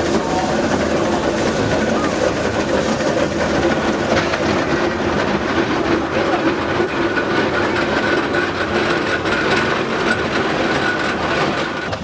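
Steam traction engines running steadily in a parade convoy.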